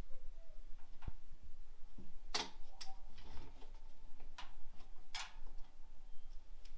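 A few separate sharp knocks and scuffs, irregularly spaced a second or two apart, the loudest two about two and a half and five seconds in.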